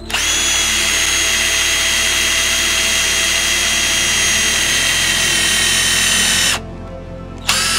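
Power drill boring a twist bit through thick plywood: a steady, loud motor whine for about six and a half seconds that cuts off. The drill starts again near the end, its pitch rising as it spins up.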